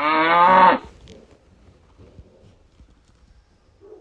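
A cow mooing once: a single moo rising in pitch, lasting under a second at the start.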